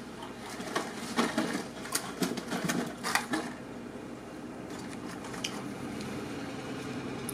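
Clear plastic fishing-lure packs being handled and taken out of a cardboard shipping box: a run of quick clicks and crinkles over the first three seconds or so, then quieter handling.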